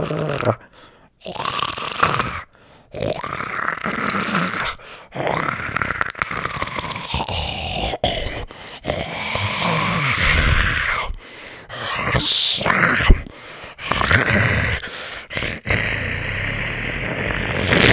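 A person's voice making a string of startled yells, screams and groans, about ten separate outbursts with short gaps between them.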